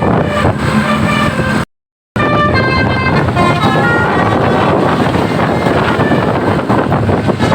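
Tour bus's telolet basuri musical horn playing a string of short notes that step up and down in pitch. The sound drops out completely for about half a second near two seconds in, and after about four seconds the horn notes give way to a steady rushing road noise.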